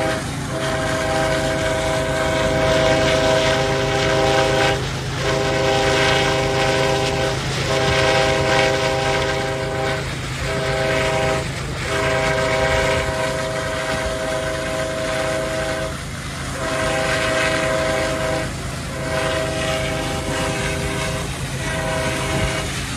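Diesel freight locomotive's multi-chime air horn sounding a string of long blasts with short breaks between them, over the steady rumble of the locomotives' diesel engines working a heavily loaded train up a grade.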